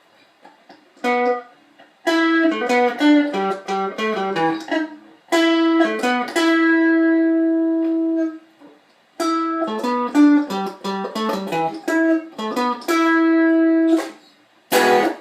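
Strat-style electric guitar playing a single-note lead riff in two phrases, quick notes each ending on a long held note. A short, scratchy strum follows near the end.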